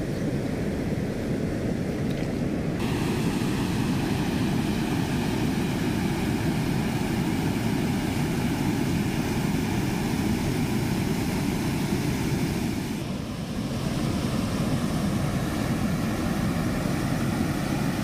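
Water from a small waterfall spilling over a weir and rushing through the shallows below: a steady, deep rushing noise, with a short dip about 13 seconds in.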